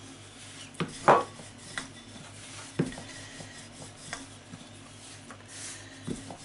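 Pastry being shaped by hand and rolled out with a wooden rolling pin on a floured worktop: a few short, sharp knocks and taps, the loudest about a second in, over a faint steady hum.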